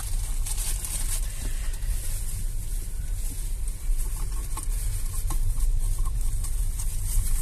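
Steady low road and tyre rumble inside the cabin of a moving Hyundai Ioniq 5 electric car, with no engine sound, only tyre noise, and a few light ticks.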